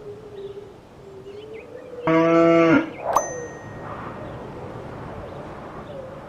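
A cow moos once, short and steady-pitched, about two seconds in. Just after, a single metallic ding rings out briefly.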